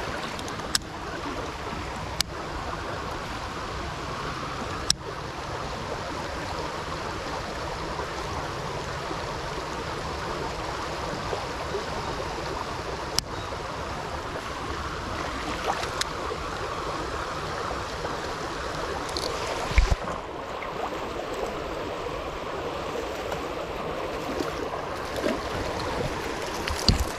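Shallow creek water flowing over stones, a steady rushing ripple. A few sharp clicks are scattered through it, and there is a low thump about twenty seconds in.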